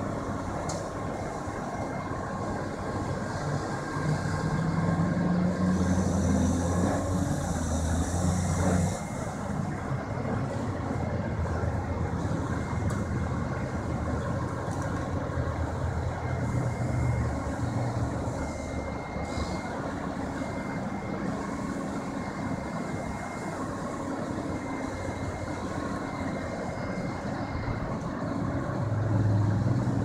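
Heavy diesel engines of the wrecker tow truck and excavator running steadily, rising louder for a few seconds about four seconds in.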